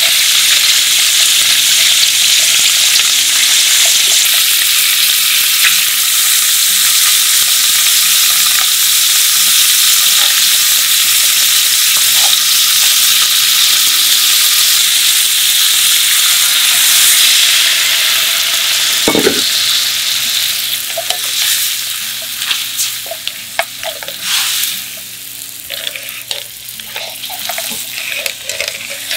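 Prawns, squid, clams and mussels sizzling steadily in hot olive oil in a frying pan, stirred with tongs. About two-thirds of the way through, white wine goes in: the sizzle flares briefly, there is a single knock, and the frying drops to a quieter, uneven bubbling and sputtering as the wine simmers.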